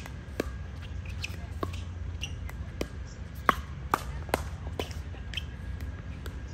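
Pickleball paddles striking a hollow plastic ball in a rally: a run of sharp pops, often about half a second apart, with a few louder hits in the middle.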